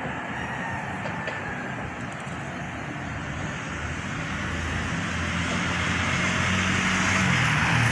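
Road traffic noise, with a motor vehicle's engine hum coming up and growing louder through the second half as it approaches.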